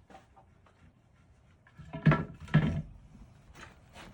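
Two loud wooden knocks about half a second apart, around two seconds in, followed by lighter knocks and a sharp tick near the end: lumber being handled on a floor frame.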